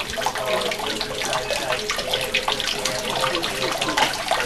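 Water running and splashing steadily into a temple's stone purification basin (temizuya), a continuous patter of small splashes.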